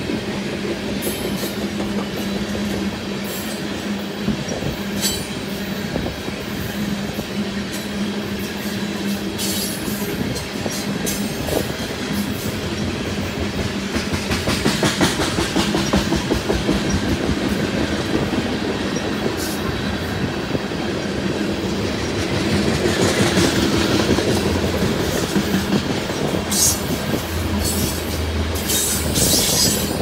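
Loaded coal train's gondola cars rolling past: steel wheels clicking over rail joints with a steady rumble and brief high squeals now and then, growing louder about halfway through.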